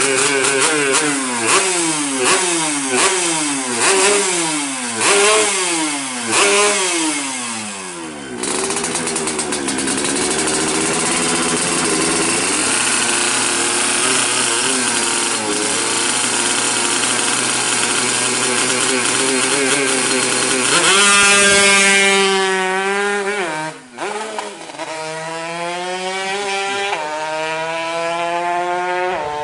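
Yamaha RX-King two-stroke single-cylinder engine being revved. It is first blipped hard about once a second, the pitch dropping back after each blip. Then it is held at high revs with a rough, noisy buzz, dips briefly about three-quarters of the way through, and climbs steadily in pitch again.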